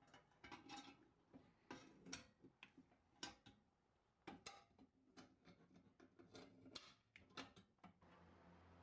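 Metal rod handles clicking and clinking against a cast-iron hibachi as they are worked into place: a string of light, irregular metallic taps and knocks, some with a short ring.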